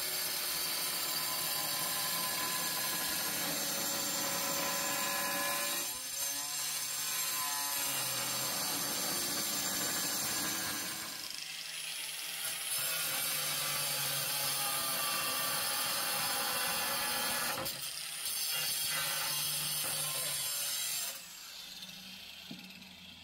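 A power tool running with a steady high whine, dipping briefly three times as if under load, then cutting out near the end.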